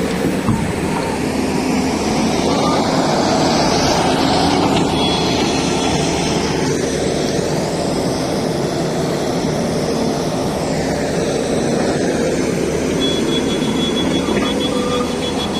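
Excavator working: its diesel engine runs steadily under load, with a high whine that rises and then falls in the middle.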